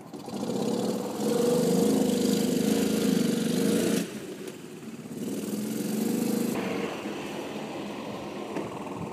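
Bored-out Kawasaki FE290 single-cylinder engine of a gas Club Car golf cart revving hard under load as the cart climbs a grassy slope. The engine note drops sharply about four seconds in, swells again briefly, then settles to a quieter steady run.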